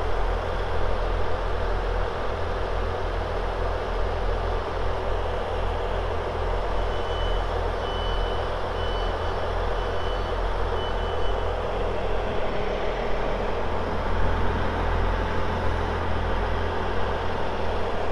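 Diesel train standing at the platform with its engine idling: a steady low hum and rumble. A string of about six short, high beeps sounds for a few seconds in the middle.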